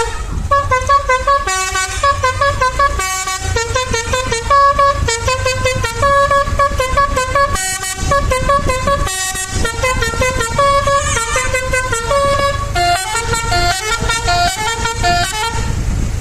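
Telolet horn on a Pradana Trans tour bus playing a tune in quick stepped air-horn notes, over a steady low engine rumble. The horn stops near the end, leaving only the rumble.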